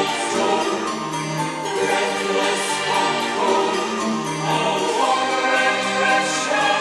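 Symphonic black metal music with choir-like voices singing sustained notes over a dense, layered backing.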